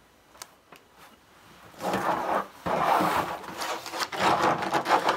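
Craft supplies being handled and gathered up: rolls of vinyl rubbing and knocking together and plastic-packaged cartridges clattering against each other. A couple of light clicks first, then continuous loud rustling and scraping from about two seconds in.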